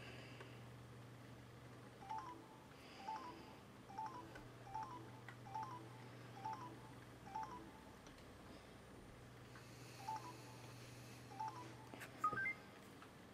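Samsung YP-T10 MP3 player's key beeps: a short two-note beep for each press of its touch buttons while scrolling through the menu, seven at about one a second, then after a pause two more. Near the end a quick rising three-note tone sounds.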